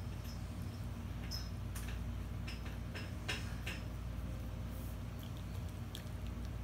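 Bloodhound puppy mouthing and gnawing a piece of bread: scattered small wet clicks and smacks from its mouth, the loudest a little after three seconds in, over a steady low hum.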